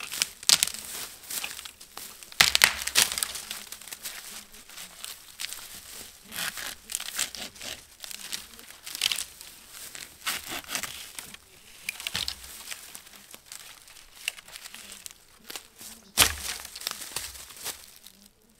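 Dry dead wood cracking and crackling as a dead sapling is pushed over and worked by hand, with rustling in dry forest litter. Irregular bursts come throughout, loudest near the start, and there is one sharp snap near the end.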